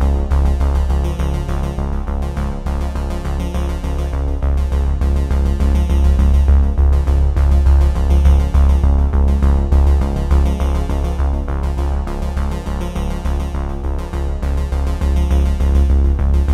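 Electronic background music: synthesizer chords over a deep, sustained bass with a steady pulse.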